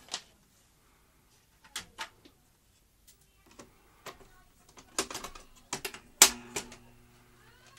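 Metal and plastic parts of a Philips N1700-type VCR being handled and fitted: a few scattered clicks, then a quick run of clicks and clunks about five seconds in, ending in the loudest clunk about six seconds in, after which a steady low hum sets in.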